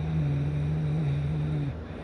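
A sleeping person snoring: one long snore held at a steady pitch, louder than the surrounding breaths, that cuts off shortly before the end.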